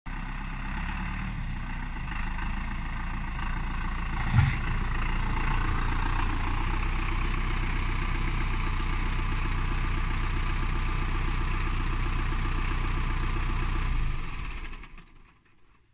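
Tümosan 52.100 tractor's diesel engine running steadily, with a single sharp knock about four seconds in. Near the end the engine sound dies away.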